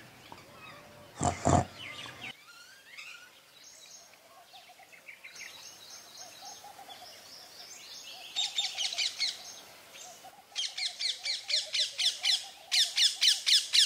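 Two short pig grunts about a second in. Then babblers chatter, building in the last few seconds into fast trains of harsh, repeated calls.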